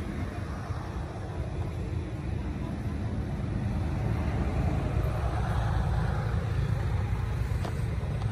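A steady low motor-like rumble and hum, growing slightly louder about halfway through, with a few faint clicks.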